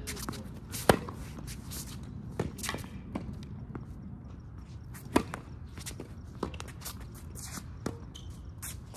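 Tennis rally: a racket strikes the ball sharply twice, about a second in and again about four seconds later, with fainter hits or bounces and footsteps on the court between.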